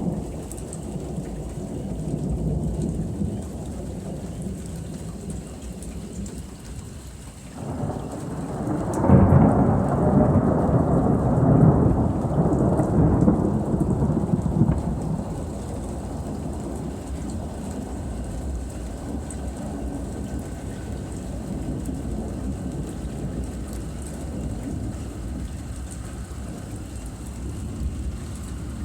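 Thunder rolling over steady rain. A loud peal breaks in about seven seconds in, rumbles for several seconds and fades back into the rain.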